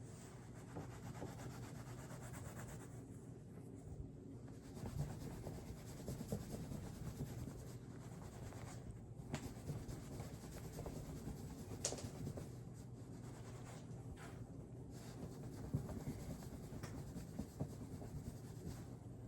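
Faint scratching of a pen writing on paper, in irregular strokes with an occasional light tap.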